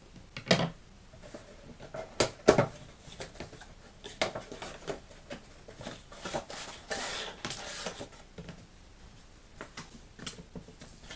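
Hands opening a cardboard toy box and sliding out its inner tray: scattered taps and knocks of cardboard, with a longer scraping rustle about seven seconds in.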